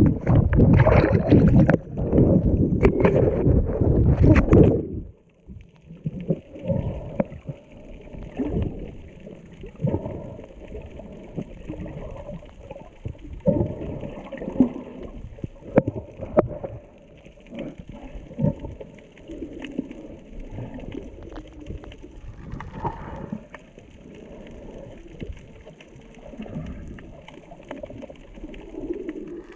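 Water splashing and sloshing against an underwater camera at the surface, then, about five seconds in, the sound drops to a muffled underwater hush with scattered clicks and crackles as the camera goes below the surface.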